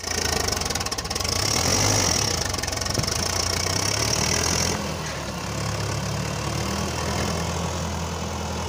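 Sonalika DI 750 diesel tractor engine running steadily under load while pulling a land leveller through sandy soil. A high hiss over it stops suddenly about halfway through.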